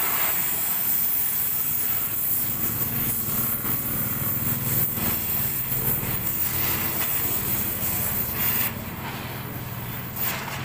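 Oxy-acetylene torch flame hissing steadily as it melts a brake shoe for use as filler on an aluminium crankcase, over a low steady hum. The higher part of the hiss drops away suddenly near the end.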